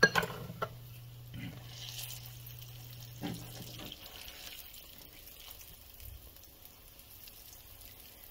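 Faint sizzle of bannock dough frying in a pan of oil, with a few light knocks and a low hum that stops about four seconds in.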